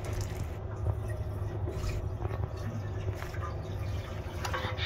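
Soy sauce pouring in a thin stream into a pot of simmering soup, with small splashes and bubbling over a low steady hum.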